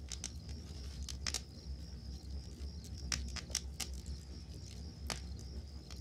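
Wood campfire crackling, with sharp pops scattered through it, over a steady chorus of crickets chirping.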